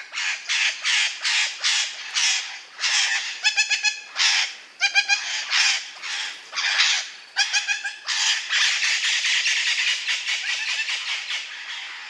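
Parrot squawking: a rapid run of short, harsh squawks with a few quicker pulsed calls among them, then one long, continuous harsh screech for the last few seconds.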